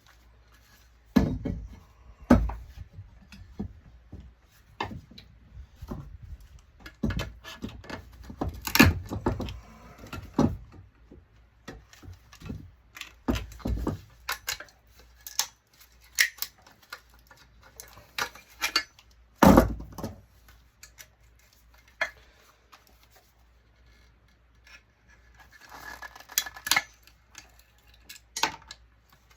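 Metal parts and hand tools clinking and clattering as a high pressure sodium digital ballast is dismantled for scrap: irregular knocks and clanks, loudest about two seconds in, around nine seconds and around twenty seconds, with a brief scraping rattle near the end.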